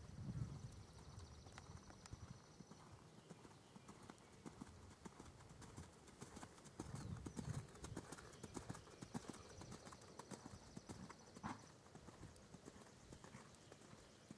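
Hoofbeats of a New Forest pony cantering on a sand arena: a run of soft, irregular thuds that grow louder about halfway through. There are a couple of low rumbles, and a faint high steady buzz that comes twice.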